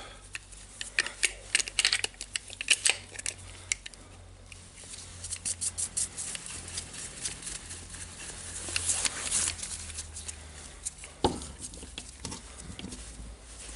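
Irregular small metal clicks and clinks as the steel plates and bolts of a bearing separator are handled and fitted around a bearing, with one sharper knock near the end.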